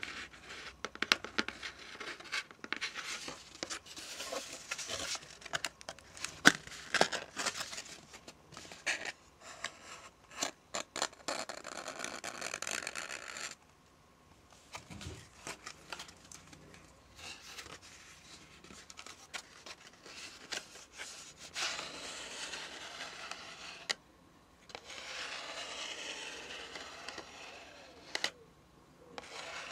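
Close-miked handling of cardboard and paper: quick taps and scratches, then rustling, crinkling and tearing.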